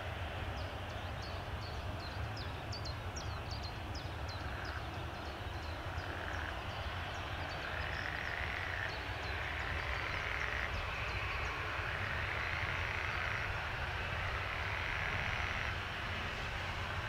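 Jet engines of a Boeing 737-800 (CFM56 turbofans) running at a distance as a steady low rumble ahead of take-off. Short high chirping calls sound over it in the first half, and repeated mid-pitched calls sound about once a second from a few seconds in.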